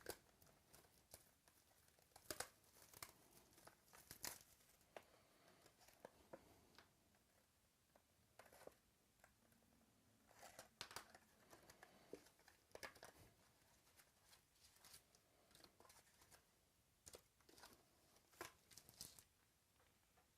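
Faint tearing and crinkling of trading-card packaging being opened by hand, in scattered short rustles and crackles.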